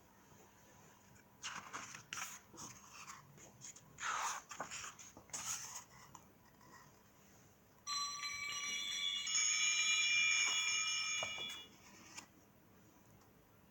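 A few rustles and clicks of a children's sound book being handled, then about eight seconds in a bell sound effect plays from the book's small speaker for about four seconds, several ringing tones overlapping before it cuts off.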